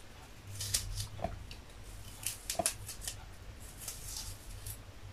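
Small kitchen knife slicing through raw fennel held in the hand: a few short, crisp crunches at irregular intervals. A low steady hum lies underneath.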